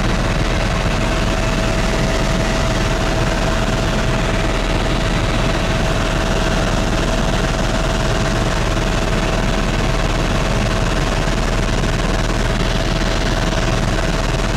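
Helicopter cabin noise in level flight: a loud, constant drone of engine and rotor with a deep rumble underneath and one steady whining tone running through it.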